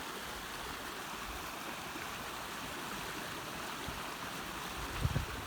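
River water gushing steadily over a rocky stretch, a continuous even rush. A brief low thump sounds near the end.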